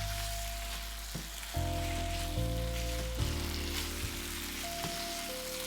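Steak bites frying in a pan with a steady sizzle, under soft background music with long held notes.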